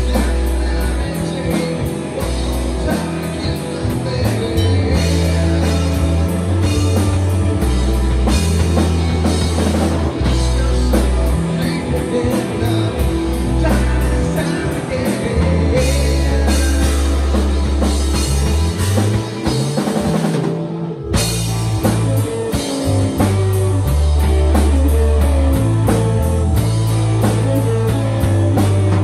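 Rock band playing live in the room: electric guitars, a heavy bass line and a drum kit, loud and steady. Nearly everything stops for a moment about 21 seconds in, then the band comes back in.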